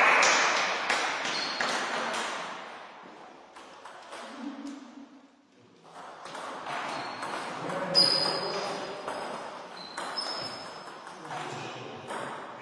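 Table tennis ball clicking off rackets and the table in a rally, a quick series of sharp pings echoing in a sports hall.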